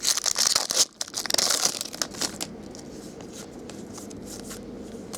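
A foil trading-card pack wrapper being torn open and crinkled, in quick crackly rustles over the first two and a half seconds, then quieter handling.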